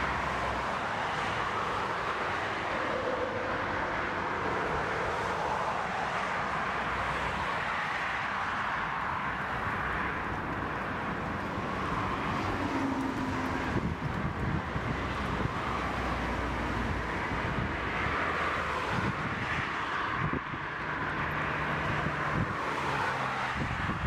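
Airbus A340-600's four jet engines (Rolls-Royce Trent 500) heard on approach and landing: a steady rushing jet noise, with wind rumbling on the microphone.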